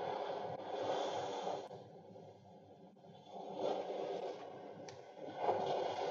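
A man's slow breathing close to the microphone: soft, noisy breaths that swell and fade three times, with a quieter gap in the middle.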